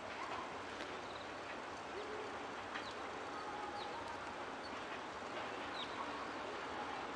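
Faint, steady outdoor background noise with a few short, high bird chirps scattered through it.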